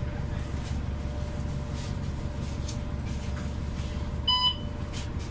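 Cabin of a stopped New Flyer XDE60 diesel-electric hybrid bus, its Cummins ISL9 diesel running with a steady low rumble and hum. About four seconds in comes a single short electronic beep.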